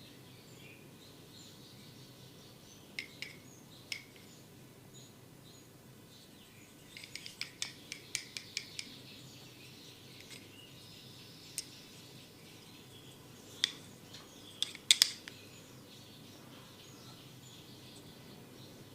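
Sharp clicking snaps, singly and in a quick run of about eight near the middle, with the loudest cluster about two-thirds of the way through, over faint bird chirping.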